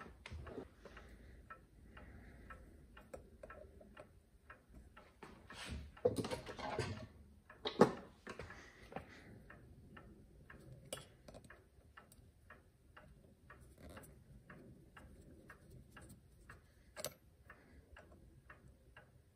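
Mechanical clock ticking evenly, a few ticks a second. Partway through there is a scrape and a sharp knock as a screwdriver works a screw into a brass clock case.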